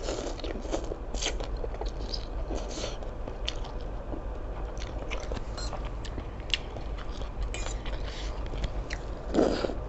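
Close-up mouth sounds of someone chewing squid with roe, firm and springy to the bite: wet chewing with many small clicks, and a louder, fuller mouth sound near the end.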